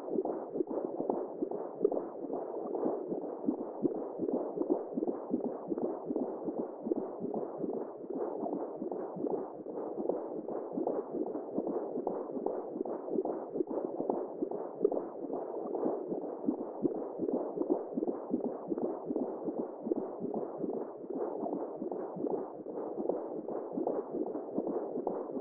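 Womb-sound white noise for lulling a newborn to sleep: a steady, muffled whooshing with nothing high-pitched in it, flickering rapidly but otherwise unchanging.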